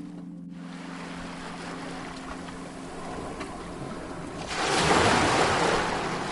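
Sea waves washing in: a soft lull of surf, then a louder wave breaking about four and a half seconds in. A faint steady low hum sits underneath for the first few seconds.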